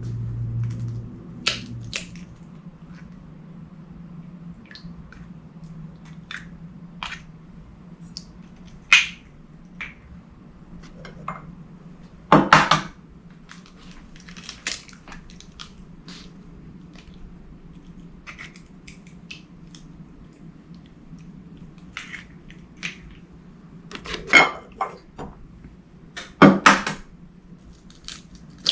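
Eggs being cracked and separated: scattered light taps and clicks of shell and bowl, with a few sharper knocks about twelve seconds in and twice near the end.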